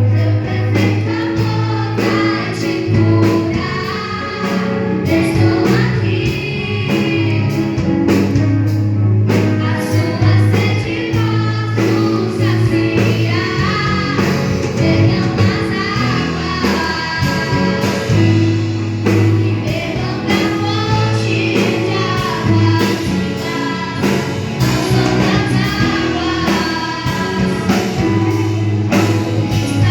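A choir singing a gospel song over instrumental backing with a steady beat and bass.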